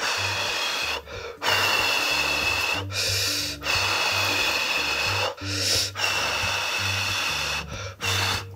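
Long airy mouth sounds from a man eating hot noodles off chopsticks, five drawn-out breaths in a row with short gaps, over quiet background music with a steady beat.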